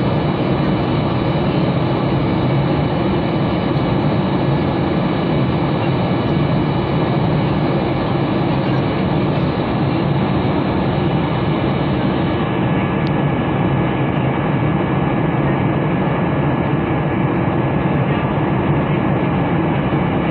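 Steady cabin noise of a Boeing 737-800 in flight: the even roar of its CFM56 turbofan engines and the air rushing past the fuselage, with faint steady whines running through it.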